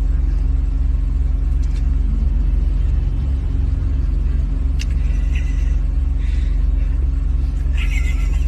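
Car engine and road noise droning steadily inside the cabin of a moving car.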